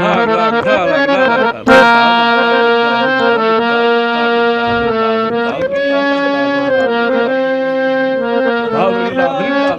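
A man singing a slow traditional melody, holding long steady notes between quick, bending ornamented runs. A single sharp knock cuts in about two seconds in.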